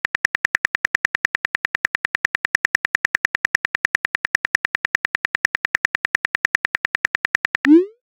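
Phone keyboard typing sound effect: an even run of small key clicks, about ten a second, as a chat message is typed. It ends near the end with a short whoosh as the message is sent.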